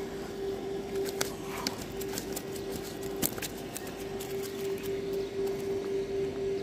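Scattered clicks and rustles as a nylon mesh keep-net holding a tilapia is handled, over a steady droning hum.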